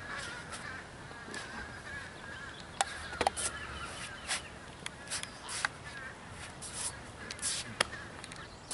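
Birds calling outdoors, a wavering chatter that fades after the first second, with about eight short sharp slaps and scuffs scattered through the rest.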